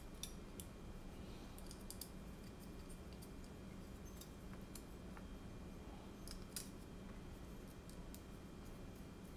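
Faint, scattered clicks and light taps of carbon-fibre drone frame plates and small screws and standoffs being handled and fitted together by hand, over a low steady hum.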